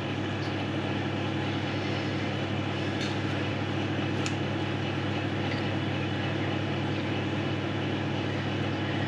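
Steady drone of a kitchen appliance fan, a low hum with an even hiss over it, with two faint ticks about three and four seconds in.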